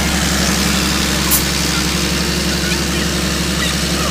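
Fire truck engine idling steadily with an even low throb, and a single sharp click a little over a second in.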